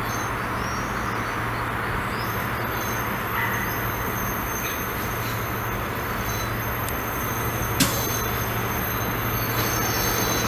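Class 66 diesel locomotive, EMD two-stroke V12, running with a steady low drone as it hauls coal wagons slowly, with a thin high-pitched wheel squeal over it. A single sharp click comes about eight seconds in.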